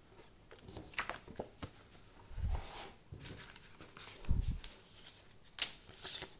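Paper and packaging from the kit's box being handled: scattered light rustles and clicks, with two soft thumps about two and a half and four and a half seconds in.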